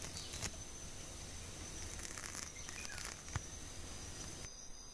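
Faint rustling and light ticks over a steady hiss, with one sharp click a little over three seconds in.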